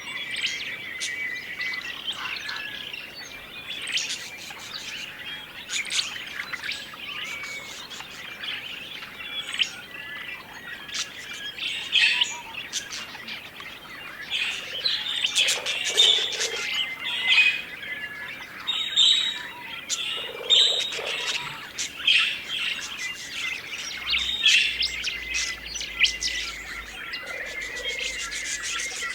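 A flock of budgerigars chirping and chattering: many short, sharp calls and squawks overlapping, busier and louder in the second half.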